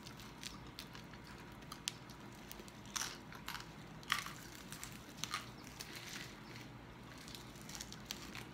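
Crisp skin of a deep-fried pork hock (lechon kawali) crackling as it is pulled apart by hand: scattered sharp cracks, with a few louder ones about three to five seconds in.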